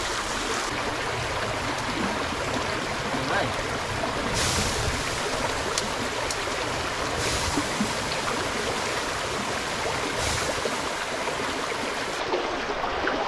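Shallow rocky stream running steadily over stones, a continuous rushing babble of water.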